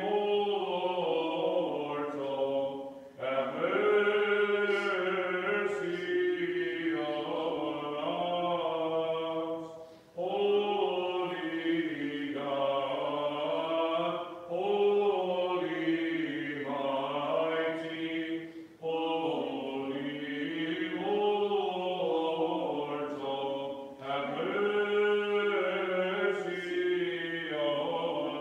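Byzantine chant: a slow melody sung in long phrases with short breaths between, over a low held drone.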